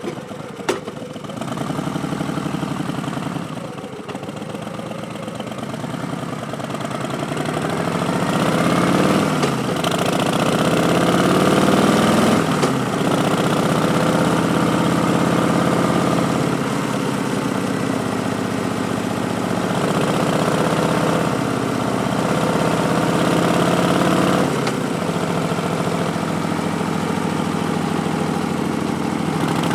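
Exhaust of a 2019 Harley-Davidson Street Bob's Milwaukee-Eight 107 V-twin through Vance & Hines Twin Slash slip-on mufflers, under way. A sharp click comes near the start. The revs climb in steps with upshifts between about six and thirteen seconds in, hold steady, and drop off about 25 seconds in.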